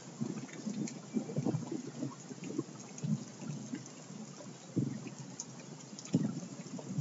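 Irregular crackling and rumbling bursts of electronic noise with no steady pitch, storm-like: a noise jam on small analogue synthesizers and Pocket Operators mixed through a loop mixer.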